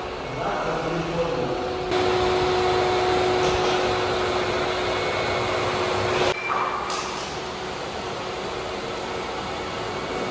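Electric floor-preparation machinery running steadily, a whooshing noise with a constant motor hum, which changes abruptly about six seconds in and carries on a little quieter.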